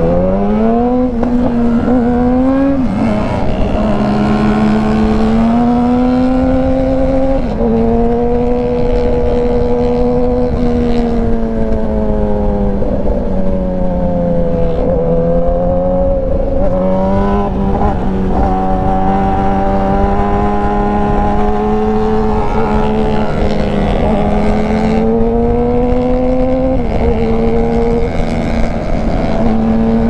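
2019 Yamaha R6 inline-four engine through an Austin Racing exhaust, heard from the rider's seat under way. The engine note climbs steeply at the start as the bike accelerates, then holds fairly steady, rising and falling with the throttle, easing off and picking up again about halfway through. Wind rushes underneath.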